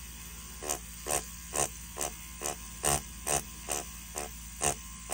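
Mast Archer rotary tattoo pen fitted with a ballpoint pen cartridge, running at about 5 volts. A steady hum is broken by short buzzes about twice a second as the ballpoint tip strikes the paper in quick shading strokes.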